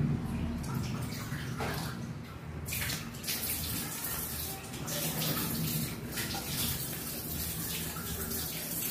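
Cats eating a wet and dry food mix from bowls: close, wet chewing and smacking with irregular small clicks.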